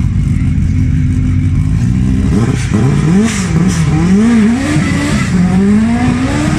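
Lancia Delta S4's turbocharged and supercharged four-cylinder engine idling with a low rumble, then revved up and down several times and launched off the start line. It climbs in pitch through the gears, with short drops at each shift, as the car pulls away.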